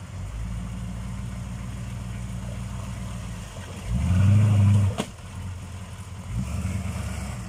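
K5 Blazer's 6.2-litre V8 diesel engine working the truck through deep mud. It is steady at first, revs up loudly for about a second around four seconds in, and is cut by a sharp crack about five seconds in. It then drops back and rises again near the end.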